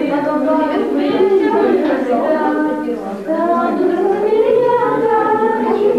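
A group of voices singing a song together, holding notes that rise and fall in a melody.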